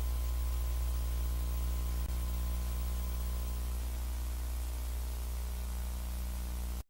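Steady electrical hum with its overtones under even hiss: the background noise of a VHS tape transfer, with no programme sound. One faint click comes about two seconds in, and the noise stops suddenly near the end.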